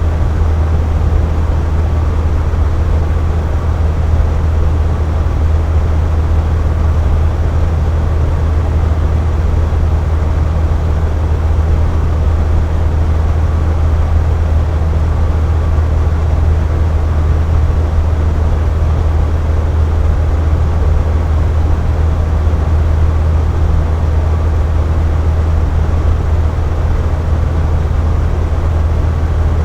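Box fan running steadily: a constant low hum under an even rush of moving air, unchanging throughout.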